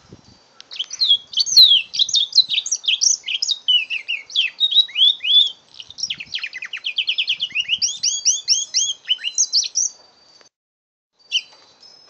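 Five-month-old mule canary, a canary–finch hybrid, singing one continuous song of about nine seconds: quick varied chirps and slurred whistled notes, with a fast trill of rapidly repeated notes in the second half. It stops, then gives one short note near the end.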